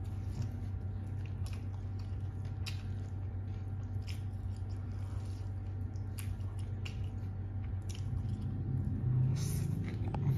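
A person chewing and biting a mouthful of green papaya salad and raw greens, with scattered short crunches, over a steady low hum.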